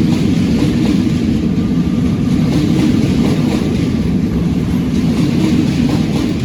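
Train running, a loud steady rumble.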